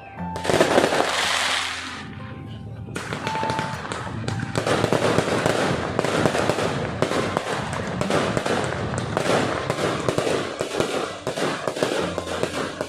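Fireworks going off: a loud burst about half a second in, then a dense run of rapid crackling bangs from about four and a half seconds on.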